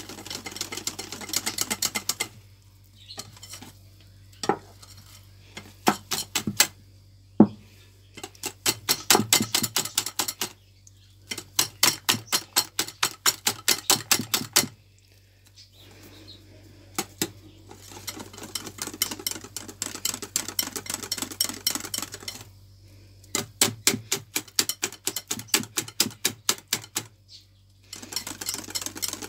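Wire whisk beating thick cake batter in a glass bowl, the flour being worked into the mixture: rapid rattling clicks of the tines against the glass, several a second, in runs of a few seconds broken by short pauses.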